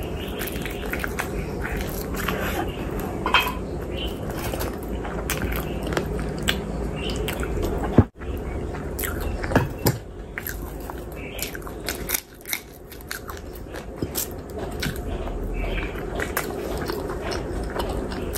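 Close-miked chewing and biting, with wet mouth smacks and many small clicks, as chicken lollipop and curried boiled egg are eaten. About eight seconds in there is one sharp click and a brief dropout.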